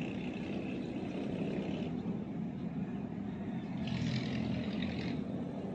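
Steady low hum of a distant engine over a rushing background, with some higher hiss about four seconds in.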